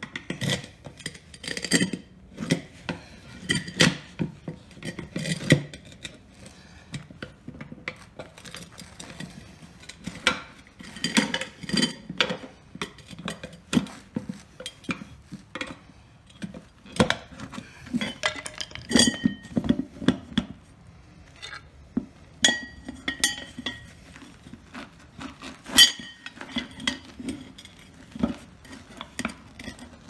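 Metal tire irons clinking, knocking and scraping against a lawn tractor's wheel rim as the tire bead is pried off, an irregular run of sharp metallic clinks, a few of them ringing briefly.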